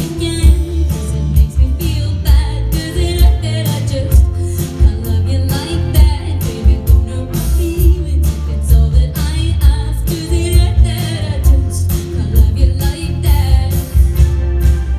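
Live pop band playing a song with a steady drum beat: a woman singing lead over electric guitar, bass guitar, keyboard, cello and drums.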